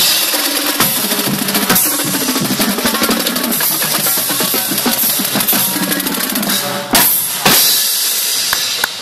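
Marching drumline playing a fast, dense cadence on snare drums, multi-tenor drums and bass drums with crash cymbals, two loud crashes about seven seconds in.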